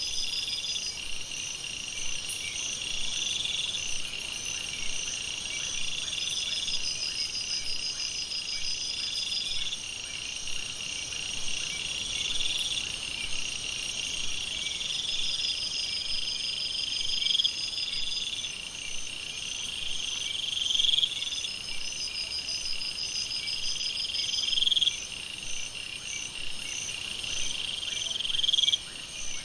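Night jungle ambience: a dense chorus of insects and frogs, several steady high-pitched trills layered together, with a louder rising call that repeats every two to three seconds.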